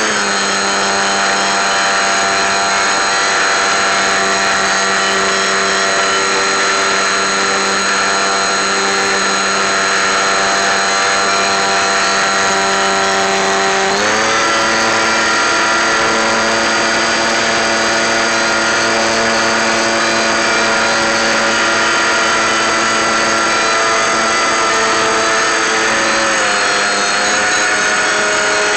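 Electric motor and propeller of an FPV model aeroplane running steadily in flight. The pitch steps up about halfway through and shifts again near the end.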